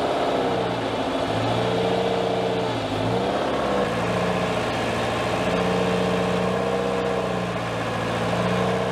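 Small loader's engine running under hydraulic load, its note sagging in pitch several times as the raised sweeper attachment is worked and lowered, with a higher whine from the hydraulics over it.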